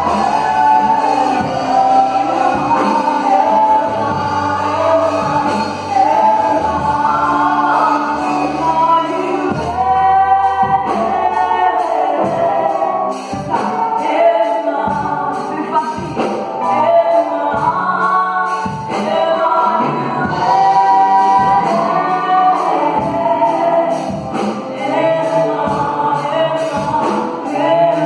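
Live gospel worship song in French, sung by a woman and a man on microphones with electric keyboard accompaniment; a steady beat comes in about halfway through.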